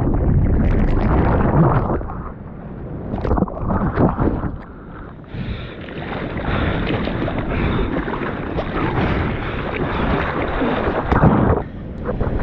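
Breaking shore-break wave and rushing whitewater splashing over a waterproof action camera, surging and dipping at first, then a steady heavy rush from about halfway that cuts off suddenly near the end.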